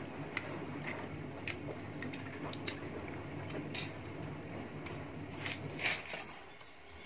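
Small metal torch and valve fittings handled by hand: scattered light clicks and taps, over a steady low hum that drops away near the end.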